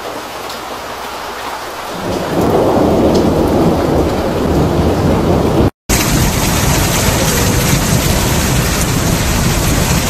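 Hailstorm: hail and rain pelting down in a dense, steady hiss that grows heavier about two seconds in. It breaks off for a split second near six seconds and resumes louder and brighter.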